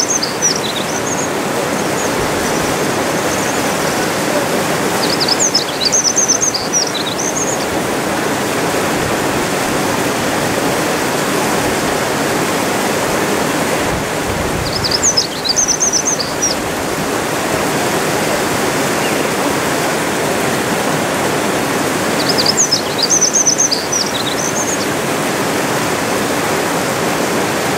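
A small brown songbird singing three short phrases of rapid, jumbled high notes, each about one and a half seconds long and several seconds apart, over a steady rush of flowing water.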